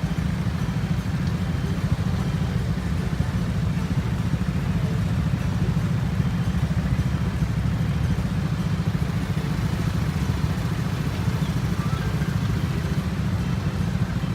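A train passing over a level crossing: a loud, steady low rumble that holds evenly and drowns out the crossing's warning tones.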